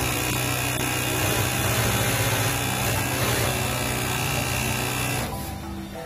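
Juki industrial sewing machine running steadily at speed as it stitches elastic tape onto fabric, stopping for about a second near the end.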